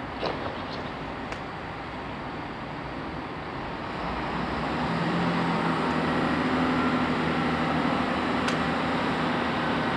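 Class 165 Turbo diesel multiple unit's underfloor diesel engines idling, then opening up about four seconds in to a louder, steady drone as the train starts to pull away from the platform. A couple of light metallic clinks sound near the start.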